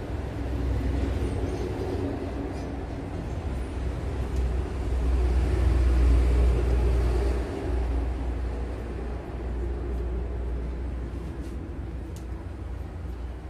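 A steady low rumble that swells to its loudest around the middle and then eases, with a few faint clicks of scissors snipping a poodle's curly coat near the end.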